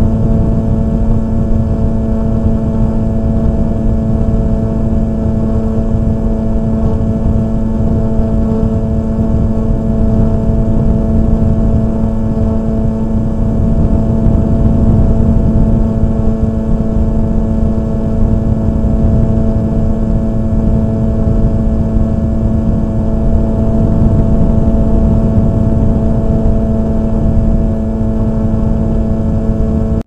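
Wind buffeting the microphone of a camera flying on a kite, a constant low rumble, with a steady hum held at one pitch throughout.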